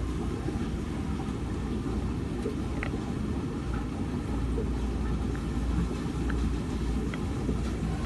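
Primus commercial washing machine running mid-cycle: a steady low rumble with a few faint clicks.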